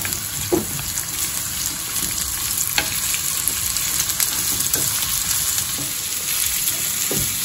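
Sliced onions sizzling steadily as they fry in hot coconut oil, stirred with a wooden spatula that knocks lightly against the pan a few times.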